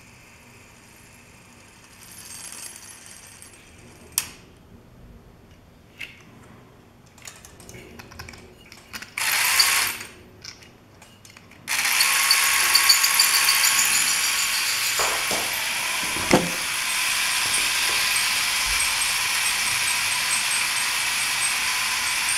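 Meccano model airplane's small electric motor and gear train running with a steady whirring mechanical noise. It is switched on about halfway through, after a few clicks of handling and one short run a few seconds earlier.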